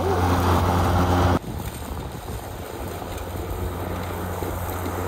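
Mowrator S1 remote-controlled lawn mower running, a steady hum close up that cuts off suddenly about a second and a half in. After that its running sound is quieter and more distant.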